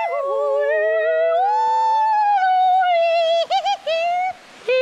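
A man's voice singing wordlessly in a high pitch, holding long notes that slide up and down, then breaking into short quick notes about three and a half seconds in and cutting off briefly near the end.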